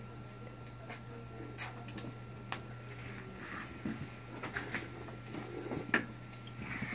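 Faint scattered clicks and small handling and eating sounds from people eating push-up frozen treats from plastic tubes, over a steady low hum, with one sharper click about six seconds in.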